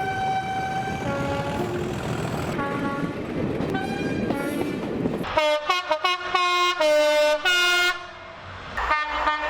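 Train horns sounding a run of notes at changing pitch over the rumble of a moving train. About five seconds in, an abrupt change brings a horn playing a quick string of short notes like a tune, with a short pause near the end.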